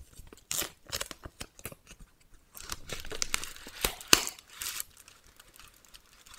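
Thin plastic wrapper of an individually wrapped sanitary pad crinkling as it is peeled open from the back and unfolded. The crackles are irregular, with a longer stretch of rustling about two and a half seconds in and a couple of sharp snaps around four seconds.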